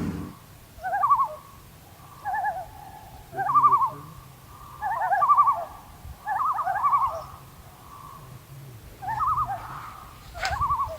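Common loons calling on a lake: repeated tremolo calls, a rapidly wavering laugh, in about seven bursts.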